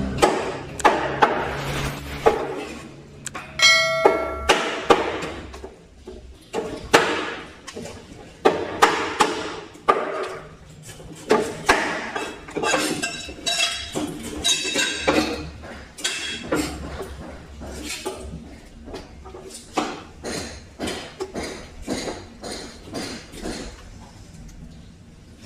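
A heavy cleaver chopping through fish heads and bones onto a wooden cutting board: a run of uneven sharp chops, about one or two a second. About four seconds in there is a brief metallic ring.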